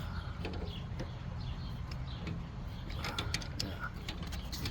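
Wrench loosening a threaded fitting on a tankless water heater's plumbing: scattered metallic clicks and creaks, bunched about three seconds in, over a low steady hum.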